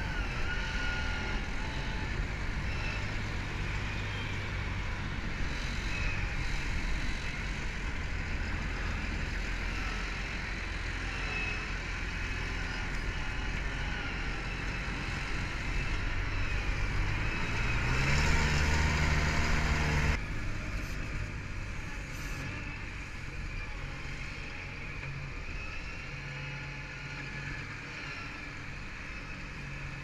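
Pinosa firewood splitting machine running, its motor and hydraulics working steadily as it processes wood. About 17 seconds in the motor's pitch rises, and the sound grows louder before dropping off abruptly about 20 seconds in.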